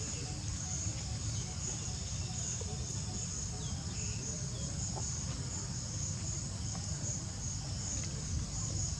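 Insects chirring in a steady, high, pulsing drone, over a constant low rumble.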